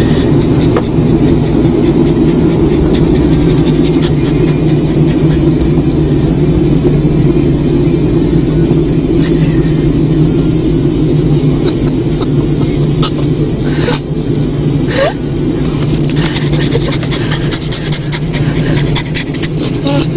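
Steady engine and road noise heard from inside a moving car's cabin, a low even hum. A few short clicks and a brief small squeak come in the second half.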